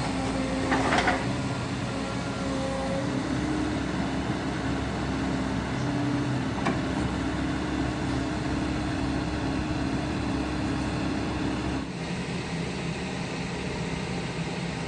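Caterpillar 307 excavator's diesel engine running steadily under hydraulic load, with a brief sharp metallic noise about a second in. About twelve seconds in, the engine note drops as the load comes off.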